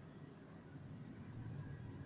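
Faint, steady low rumble of outdoor background noise over rooftops, with no clear single source.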